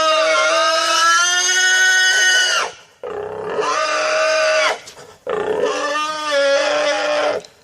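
Pigs squealing: three long, loud, high-pitched squeals one after another, with short breaks about three and five seconds in.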